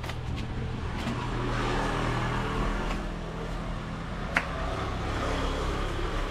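A motor vehicle's engine running close by, its note shifting and swelling for a couple of seconds, with one sharp click a little past four seconds in.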